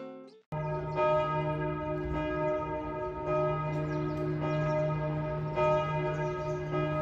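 Church bells ringing, starting suddenly about half a second in: several bells whose tones overlap and hang on, with a fresh strike roughly once a second.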